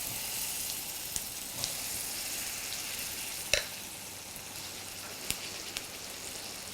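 Suji handvo batter sizzling in hot oil with a mustard, cumin and sesame seed tempering, a steady high hiss just after it goes into the pan. A few light clicks ring out over it, the loudest about halfway through.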